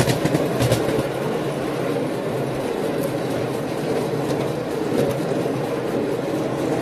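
Miniature railway train running along the track as heard from a passenger car, a steady rolling noise of wheels on rail with a few sharp clicks about a second in.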